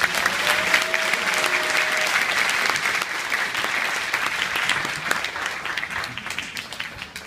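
Audience applauding, with the clapping thinning out over the last two seconds or so.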